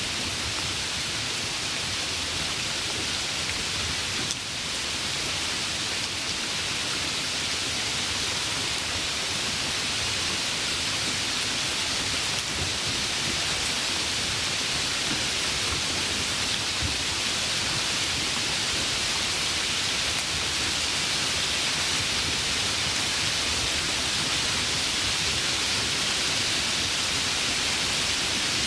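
Steady hiss of rain falling by a river, even throughout apart from a brief dip in level about four seconds in.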